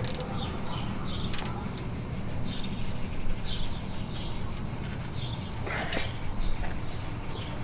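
Steady high chirring of crickets in the background, with a few faint clicks and a brief scrape about six seconds in as a zip tie is pulled tight around a rubber fuel-tank drain hose.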